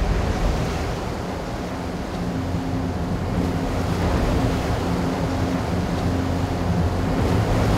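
Game-fishing boat under way at trolling speed: a steady low engine hum beneath the rush of its churning wake, with wind buffeting the microphone.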